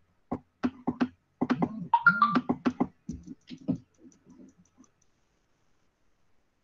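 A voice in short, broken fragments that fade out about two thirds of the way through.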